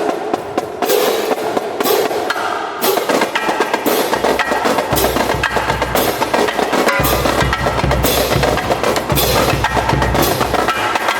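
Rhythmic percussive drumming with sharp, woody hits in a steady beat. A deep bass beat joins about five seconds in and gets heavier around seven seconds.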